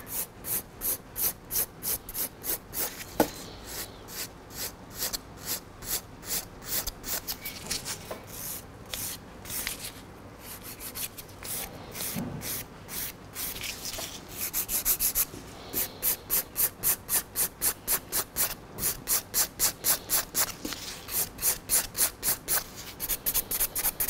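Hand nail file rasping over an acrylic nail in short, regular strokes, about two a second and later quicker, about four a second. The top of the nail is being filed flatter to shape its apex.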